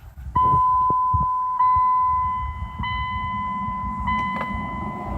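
Dodge Journey dashboard warning chime sounding in repeated steady tones about a second apart, with a few clicks as the ignition key is turned. No starter cranking or engine is heard: the car fails to start.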